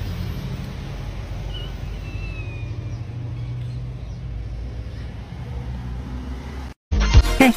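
Steady outdoor background noise with a low hum, like distant traffic or a running machine, with a faint high chirp about a second and a half in. It cuts off near the end and music with a beat starts.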